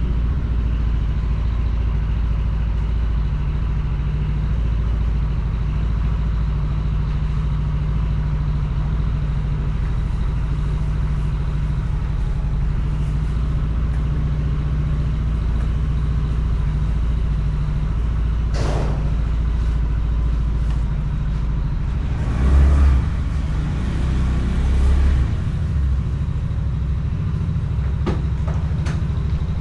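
Honda Beat scooter's 110 cc single-cylinder engine running with road and wind noise, heard from a camera mounted on the bike. A sharp sound about two-thirds of the way in, two louder low surges shortly after, and a few light clicks near the end.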